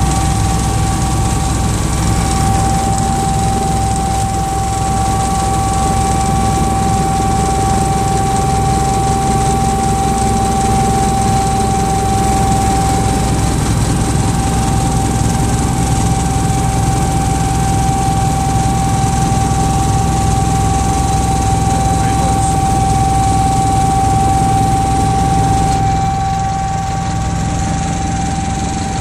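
Sikorsky S-76 helicopter heard from inside the cockpit in flight: the steady, loud drone of its twin turboshaft engines and rotors, with one constant high whine over it. The noise eases slightly near the end.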